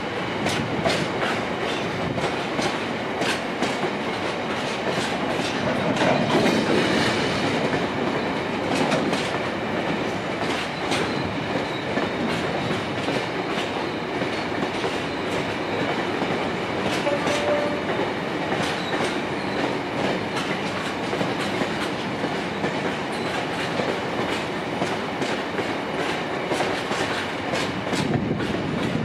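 Freight train of open box wagons rolling steadily past, its steel wheels clicking over the rail joints.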